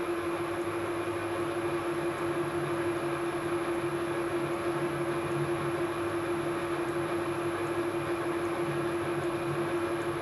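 1972 Weiler Matador SV lathe running under power while a single-point tool cuts an M18x1.5 thread pass: a steady machine hum with one constant tone over the even noise of the cut.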